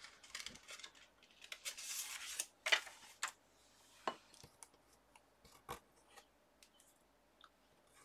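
A sheet of paper rustling and sliding across the cutting mat, loudest about two to three seconds in, followed by scattered light taps and clicks of small craft pieces being handled.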